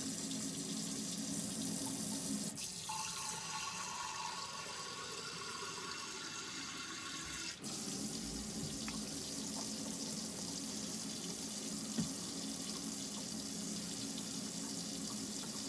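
Hot water running steadily from a camper's faucet into the sink, drawn continuously from an Alde water heater to see how long the hot water lasts. Its sound changes in pitch for about five seconds, from roughly two and a half seconds in.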